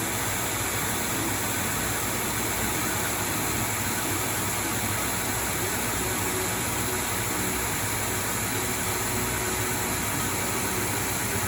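ProtoTrak CNC lathe running a turning pass on a 4140 steel shaft with a carbide insert: a steady, even machine and cutting noise.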